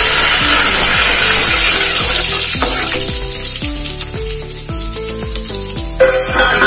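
Curry leaves, dried red chillies and mustard seeds sizzling in hot oil in an aluminium pot: a South Indian tempering (tadka). The sizzle is strongest for the first few seconds, dies down, then flares up sharply near the end.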